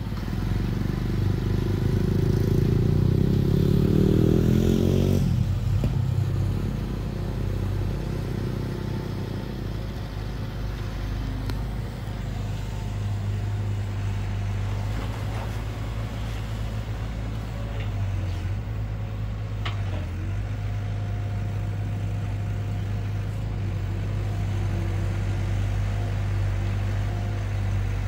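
Long-reach Hitachi excavator's diesel engine running, climbing in pitch under load for about five seconds then dropping back abruptly, before settling into steady running while the boom and bucket work. A few short clanks come about two-thirds of the way through.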